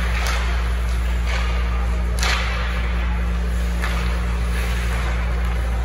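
Youth ice hockey play on the rink: a few sharp scraping slaps of skates and sticks on the ice, the loudest about two seconds in, over a steady low hum.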